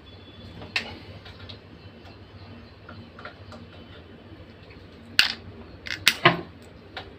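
Sharp clicks and taps from a hair trimmer being handled: one click about a second in, then a cluster of several louder clicks and knocks around five to six seconds in. The motor is not running.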